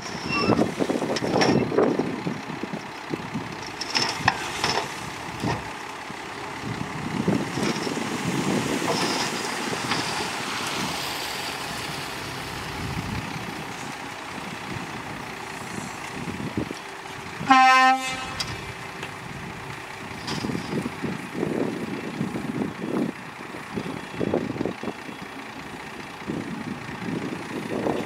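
Dump truck running as its tipped bed rises and a load of soil slides out, an uneven rumble of engine and falling dirt. Past the middle a vehicle horn sounds once, briefly, the loudest sound in the stretch.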